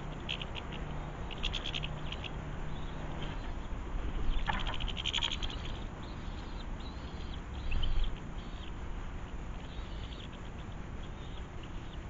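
Goldfinches and house sparrows calling at garden seed feeders: short, high chirps and twitters in scattered runs, busiest about four to five seconds in. A low bump about eight seconds in.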